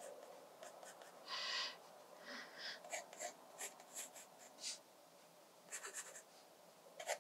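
Graphite pencil drawing on Moleskine watercolour sketchbook paper, making faint scratchy strokes. One longer stroke comes about a second and a half in, followed by a run of short quick strokes.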